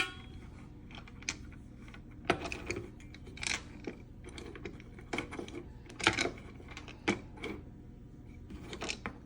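A scattered series of sharp clicks and light clatters at uneven intervals, over a faint low hum.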